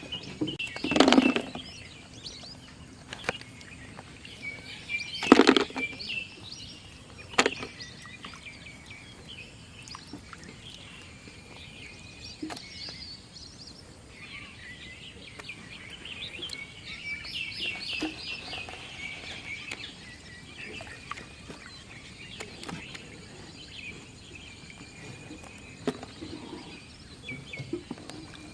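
Small birds chirping repeatedly, with three loud sudden knocks or splashes about a second in, around five seconds in and a couple of seconds after that.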